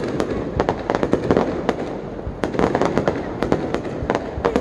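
Fireworks display: aerial shells launching and bursting in rapid volleys, with many sharp bangs in quick succession over a continuous din.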